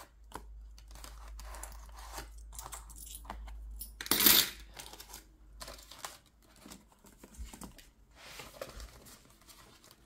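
Paper and money being handled at a table: rustling and small clicks, with one brief, louder rustle about four seconds in.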